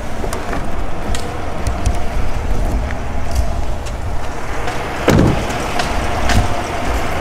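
Truck driving slowly with the camera out of the open window: road noise and wind rumbling on the microphone, with a loud thump about five seconds in and a lighter one a second later.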